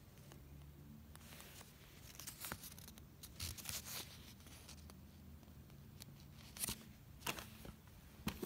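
Faint handling noise: fingers rustling and brushing against a plush toy and its fabric tag, with a few scattered soft clicks, clustered about two to four seconds in and again near the end.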